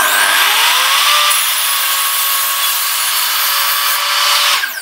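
Evolution mitre saw cutting a corner off a melamine board at 45 degrees. The motor's whine rises as it spins up over the first second, then the blade cuts steadily and loudly, and the whine starts to fall as the motor winds down near the end.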